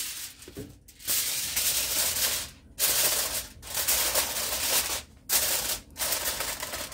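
Aluminium foil crinkling as it is pressed and crimped by hand over the rim of a disposable aluminium roasting pan, in a run of loud bursts with short pauses between.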